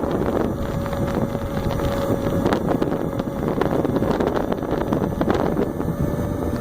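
2015 Zero SR electric motorcycle under way: a steady rush of wind on the microphone over a thin, steady whine that fades in and out.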